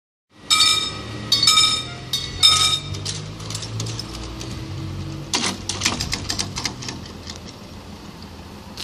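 Level-crossing warning bell ringing three times, about a second apart, as the barrier booms lower, with a low hum underneath. A run of clicks and rattles follows as the booms come down and settle.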